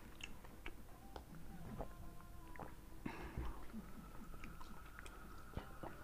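Faint chewing and slurping of noodles by two people eating with forks, with scattered small clicks.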